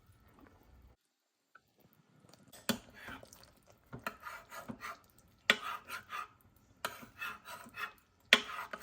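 A spoon stirring chicken and potatoes in sauce inside a slow cooker crock, clinking and scraping against the pot. There are five strokes about a second and a half apart, starting about two and a half seconds in.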